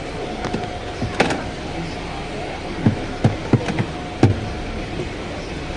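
Steady background hum and noise with a faint steady tone, broken by about six short, sharp knocks or clicks in the middle few seconds.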